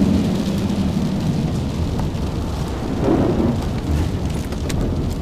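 BMW E39 528i's 2.8-litre straight-six engine running under load, heard from inside the cabin over a loud rumble of tyres and spray on a very wet track, swelling about three seconds in.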